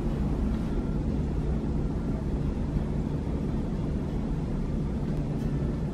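Steady low rumble with a faint hiss above it, unchanging throughout.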